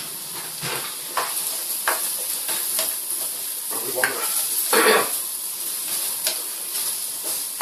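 Chopped onion frying in hot oil and butter in a wok: a steady sizzle, with scrapes and taps of a spatula stirring against the pan, the loudest about five seconds in.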